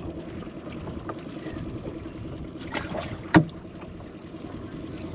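A fishing boat sitting on the water: a steady low hum with light wind and water noise, a few small ticks, and one sharp knock about three and a half seconds in.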